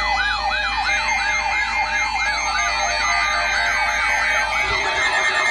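Weather radio alert siren: an electronic tone sweeping down in pitch over and over, about two and a half sweeps a second, over steady tones. It is set off by the attention signal of the NOAA Weather Radio weekly test.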